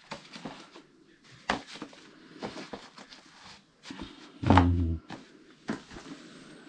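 Scattered plastic clicks and knocks as the snap-on frame of a dog's pee-pad litter tray is handled and pressed down over the pad, with a brief low grunt-like voice sound about four and a half seconds in.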